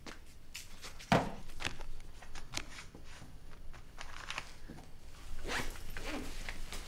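Cloth and kitchen things being handled in a hurry while food is packed: a run of short rustles and clicks, with one sharp knock about a second in and denser rustling near the end.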